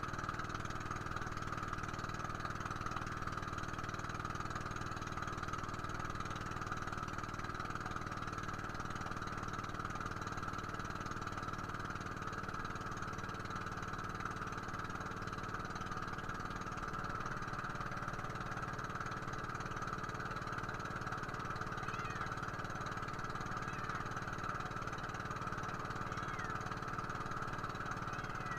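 A small boat's engine running at a steady speed, an unbroken drone that does not change.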